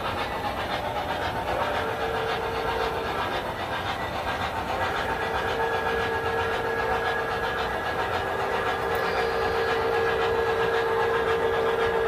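MTH O-gauge model train cars rolling past on the track: a steady rumble and clatter of wheels, with a steady hum underneath that grows louder about halfway through.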